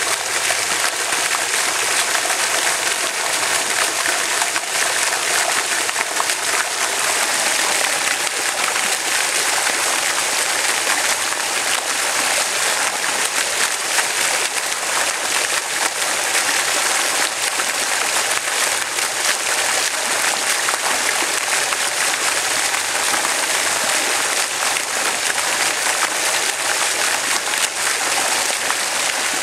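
Flowing water rushing and splashing in a steady, unbroken stream.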